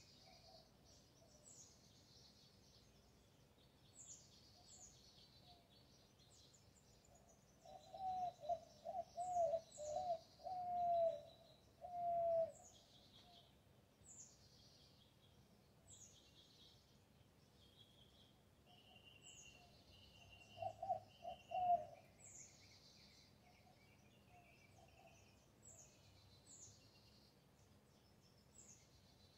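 Backyard birds calling: short high descending chirps repeat every second or two, while a lower-pitched bird gives quick runs of short notes about eight seconds in and again past twenty seconds, the loudest sound.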